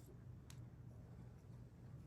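Near silence: a steady low room hum, with one faint, brief click about half a second in.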